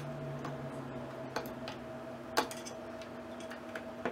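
Hand screwdriver turning a screw through a metal bracket into a 3.5-inch hard drive, making small metallic clicks and ticks. There is a sharper click right at the start and another a little past halfway, with fainter ticks between.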